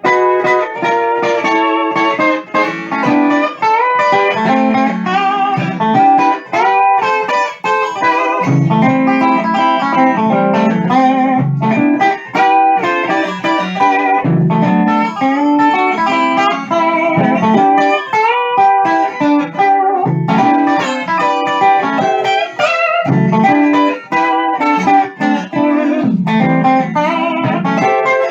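Homemade triple-neck six-string steel guitar played on its A6-tuned neck: an instrumental passage of picked single notes and chords, many held with a wavering bar vibrato.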